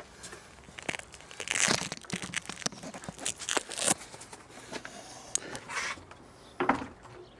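Camera handling noise: irregular rubbing, scraping and small knocks as the camera and its loosely mounted clip-on wide-angle lens are handled. The louder rough bursts come about one and a half to two seconds in, near four seconds and again near the end.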